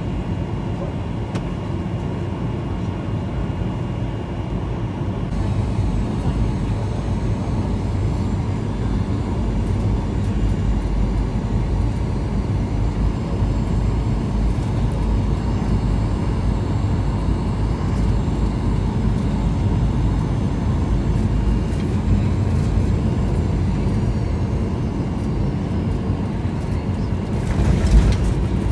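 Airliner cabin noise on final approach: a steady low rumble of the jet's engines and airflow that grows somewhat louder. About a second before the end comes a sudden burst of rumble and rattle as the wheels touch down on the runway, a landing rated a bit bumpy.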